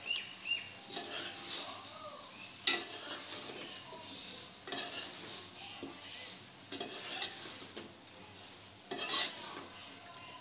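Metal spoon stirring and scraping chicken curry against the sides of a metal pot in irregular strokes, over the sizzle of the frying masala, with one sharp clink a little under three seconds in.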